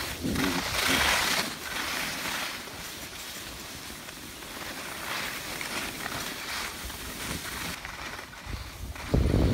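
Skis hissing and scraping over packed snow in repeated swells. Near the end, a loud gust of wind buffets the microphone.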